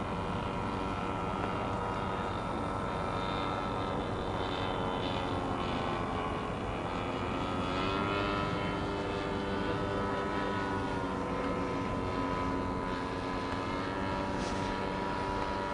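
Engine of a radio-controlled scale model P-51D Mustang in flight, a steady droning note with several overtones. About halfway through, the pitch sags, then climbs sharply and holds.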